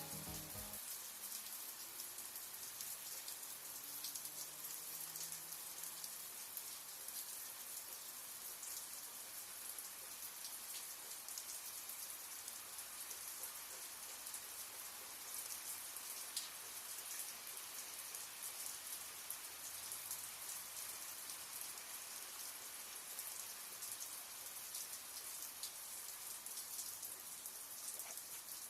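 Light, drizzling rain falling steadily: a faint, even hiss with scattered single drops ticking.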